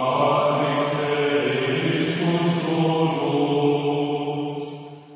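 Intro music in the style of a chant: a held, drone-like tone with rich overtones that shifts note once or twice and fades out near the end.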